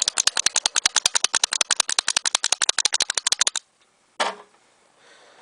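Rapid, even mechanical clicking, about a dozen sharp clicks a second, that stops abruptly after about three and a half seconds, followed by a single sharp knock.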